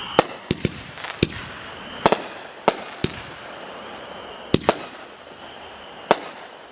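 Hong Kong Harry firework by Universal going off: about a dozen sharp bangs at uneven spacing, several close together in the first second or so, then sparser, the last about six seconds in.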